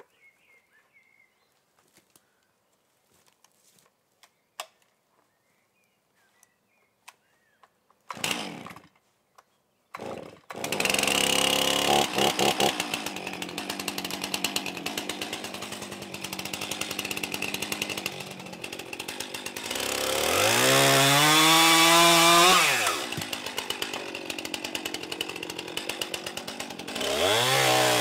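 Two-stroke petrol chainsaw started about a third of the way in, after a short first burst that dies away, then running with a rapid even beat. It is revved up twice, the pitch rising and falling back around two-thirds of the way in and rising again near the end. Before it starts there are only faint clicks of handling.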